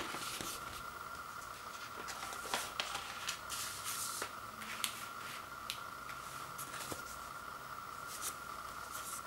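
Paper inner sleeve of a 12-inch vinyl record rustling and scraping as it is handled, with scattered short crinkles and a few light taps, over a steady high-pitched background whine.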